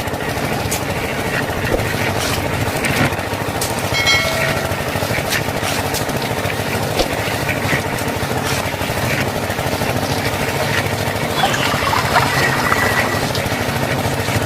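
Steady mechanical running noise like a small motor or engine, with scattered clicks and a brief pitched tone about four seconds in.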